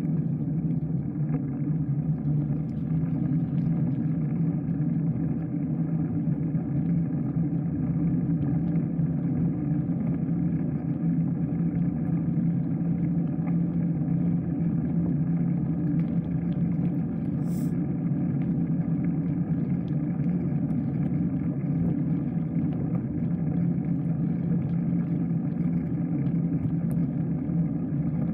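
Steady low rumble of a bike ride: road and wind noise picked up by the camera riding along with the bike.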